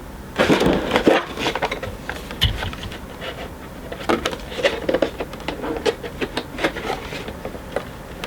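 Handling of a boxed Funko Pop in a warped plastic protector: rubbing and sliding of plastic and cardboard, denser near the start, then scattered small clicks and taps.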